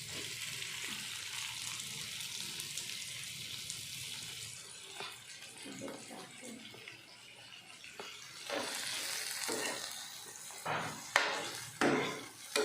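Shrimp sizzling as they go into hot oil in a pan with the sautéed aromatics, a steady hiss that eases off midway and builds again. A few knocks sound near the end.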